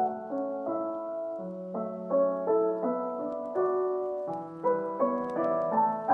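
Background piano music: a calm melody of single notes over held chords, a new note struck about two or three times a second.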